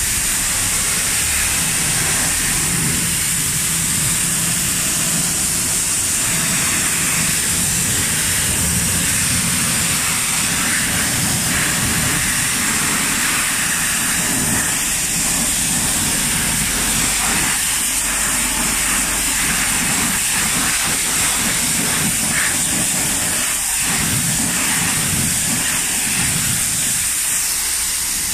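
High-pressure wash lance spraying water against a car's alloy wheel and the wet concrete floor: a steady loud hiss with splashing, rinsing the wheel cleaner off the rim with clear water.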